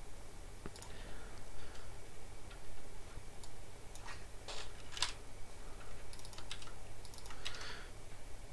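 Typing on a computer keyboard: scattered, irregular keystrokes with pauses between short runs.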